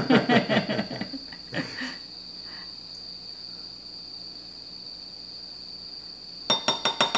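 Giggling laughter, a rapid run of short pitched bursts in the first second and again near the end, over a steady high-pitched tone.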